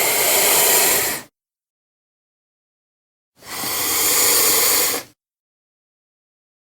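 Two breathy hisses made as sound effects for the giant lizard Megalania, each under two seconds, with dead silence between. The first fades out about a second in; the second starts about three and a half seconds in.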